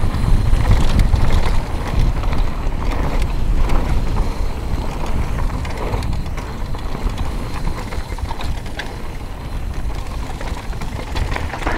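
Mountain bike rolling fast down a dry dirt trail: tyre noise and wind on the microphone make a steady low rumble, with scattered clicks and rattles from the bike. It grows a little quieter toward the end.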